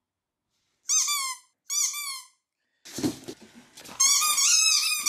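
A dog's squeaky ball toy squeaking as it is chewed. There are two short rising-and-falling squeaks about a second apart, a few knocks, then a run of repeated squeaks near the end.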